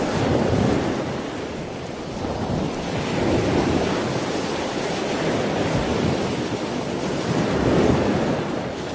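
Ocean surf washing in: a steady rush that swells and eases about every three to four seconds.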